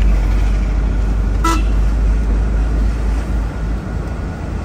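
Steady low rumble of a lorry moving on the road, with one short horn toot about one and a half seconds in. The rumble eases near the end.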